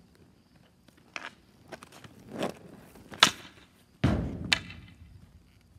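Hockey stick and street hockey ball on a concrete driveway: a few light clicks and a swelling scrape, then the sharp crack of the stick striking the ball a little after three seconds in. About a second later comes a deep thud with a low boom, the loudest sound, and another knock just after it.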